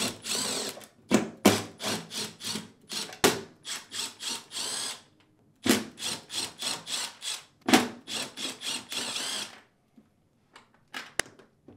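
Cordless power driver fitted with a T15 Torx bit backing screws out of a dishwasher door's metal panel. It goes in about five short runs, each a quick series of sharp rattling pulses with the motor whine rising and falling. It stops about two thirds of the way in, leaving a few light clicks near the end.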